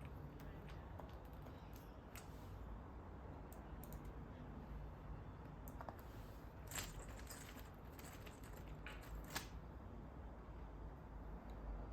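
Faint, scattered clicks and taps from the plastic parts and keys of a Logitech wireless keyboard being handled during disassembly or reassembly, at irregular intervals over a low steady hum.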